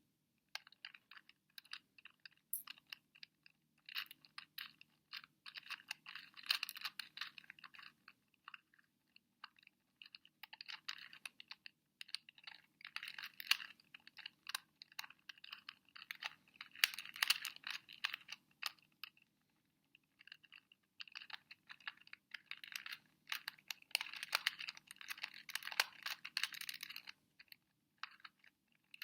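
Plastic pieces of a 2x2 Rubik's Cube clicking and rattling as its layers are turned rapidly by hand, in quick flurries broken by short pauses.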